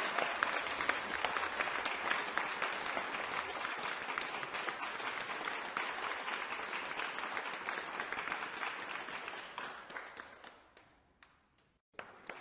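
Applause from many people clapping, fading away and stopping about ten seconds in.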